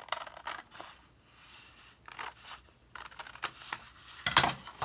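Scissors snipping through red cardstock in a few short cuts, with the stiff sheet rustling as it is handled; a louder thump from the cardstock about four and a half seconds in.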